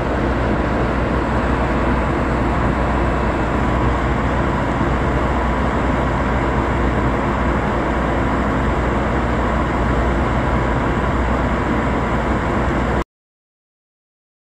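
Steady, loud machinery drone with a hiss over it and a low hum beneath, cutting off abruptly near the end.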